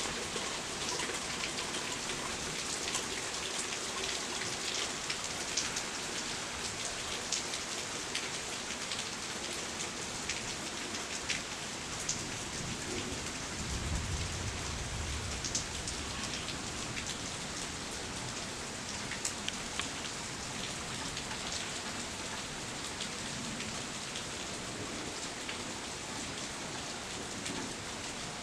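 Heavy rain falling steadily, with individual drops ticking sharply near the microphone. Just under halfway through, a low rumble of thunder rolls for about two seconds.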